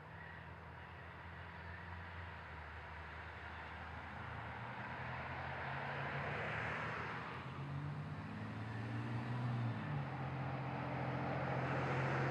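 Approaching diesel locomotive, a low steady engine drone that grows gradually louder, with two swells of rushing noise, about halfway and near the end.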